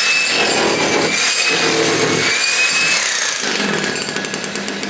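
A handheld power tool running continuously, its high motor whine wavering slightly in pitch as it is worked, then easing off a little near the end.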